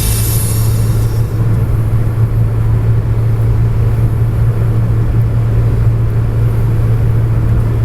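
Steady low rumble and drone of a car driving along a highway, with a strong constant hum underneath.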